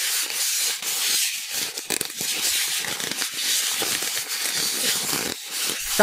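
Pieces of styrofoam (expanded polystyrene) rubbed against each other: a continuous scratchy rubbing made of many short, irregular strokes, briefly quieter near the end.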